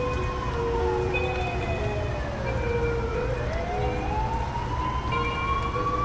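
Siren wailing slowly: its pitch falls over about three seconds, then rises again, over a low traffic-like rumble.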